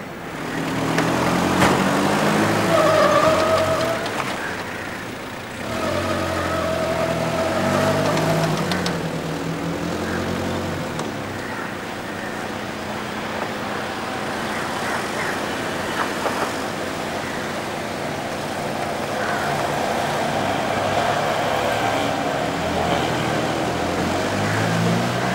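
Car engines running and revving as vehicles pull away, with background music playing over them.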